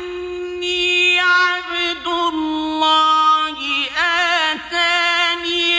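A male Qari chanting Arabic verses of the Quran in melodic recitation, holding long notes and breaking into a wavering, ornamented turn about four seconds in.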